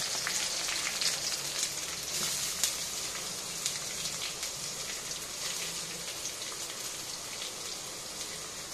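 Curry leaves and chopped onion frying in hot oil in an aluminium kadhai: a steady sizzle with scattered small crackles and pops, slowly getting quieter.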